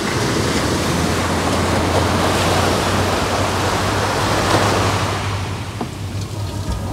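Sea surf rushing steadily over a low, steady hum, swelling a little in the middle and easing near the end.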